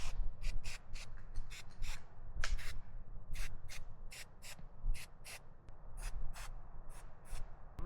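Aerosol spray-paint can giving a rapid series of short hissing bursts, dabbing paint over the bullet holes on a target dummy. A low rumble of wind runs underneath.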